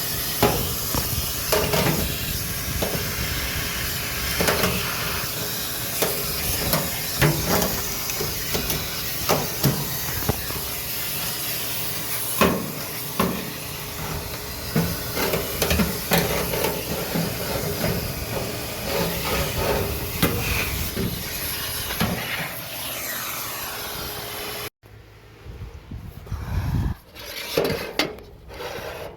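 Central vacuum hose running with a steady rushing hiss while cleaning out a dryer, the nozzle knocking against the dryer's parts again and again. About 25 seconds in the hiss stops abruptly, leaving a few scattered knocks and handling sounds.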